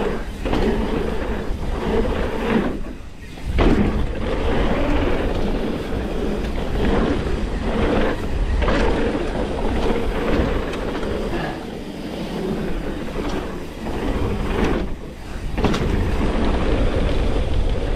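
Mountain bike riding down a packed-dirt trail: tyres rolling over the dirt, the bike rattling, and wind rumbling on the camera microphone, with brief lulls about three seconds and fifteen seconds in.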